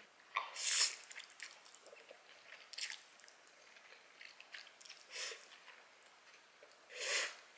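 A person slurping and chewing instant noodles close to the microphone: four short slurps about two seconds apart, the last the loudest, with soft chewing between them.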